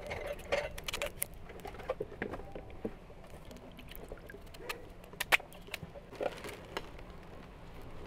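Raw potatoes being peeled and cut by hand, then dropped into a basin of water: scattered small knife clicks and a few light splashes.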